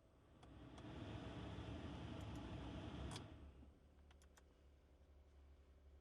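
Honda That's air-conditioning controls clicking as they are worked, with the blower fan rushing air for about two and a half seconds. The air stops with a loud click about three seconds in, and a few more switch clicks follow.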